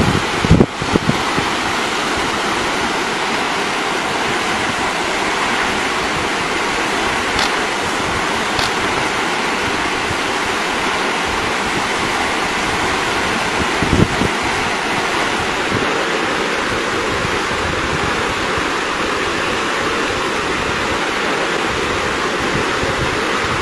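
Steady rush of a fast-flowing muddy river, with a brief thump about 14 seconds in.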